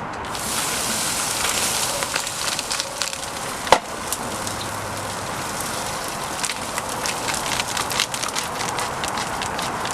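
A fire burning in a car, hissing steadily with many sharp crackles and one loud snap about four seconds in.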